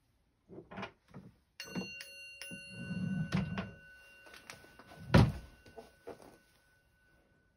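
Small Buddhist altar bell (orin) struck once, ringing with a slowly fading tone. Under it a wooden drawer slides shut, and a loud thump comes a little after five seconds in.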